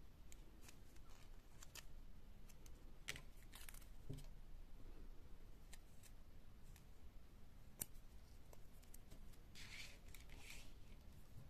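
Faint clicks and ticks of small plastic toy pieces and a paper sticker sheet being handled and set down on a tabletop, with two short rustles, one about three and a half seconds in and one near the end.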